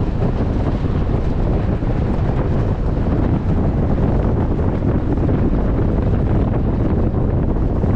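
Wind buffeting the microphone out of the side window of a moving 4x4, a loud steady rush over the low rumble of the vehicle driving on a gravel road.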